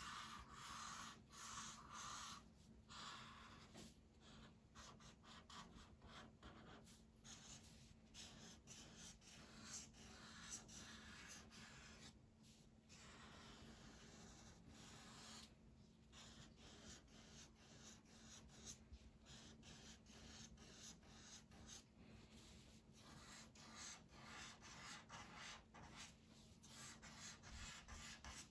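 Faint scratching of a black pen drawing on paper, in many short strokes with brief pauses between them, as pencil lines are inked over.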